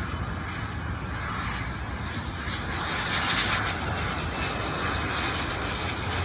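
Small business jet flying low overhead on landing approach: a steady rush of jet engine noise that grows louder about three seconds in.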